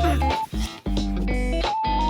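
Background music: an electric guitar playing a melody over bass guitar.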